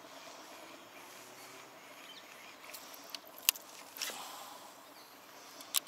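A handful of sharp clicks and knocks from handling a fishing rod and reel, scattered through the second half with the loudest about three and a half seconds in, over a faint steady outdoor background.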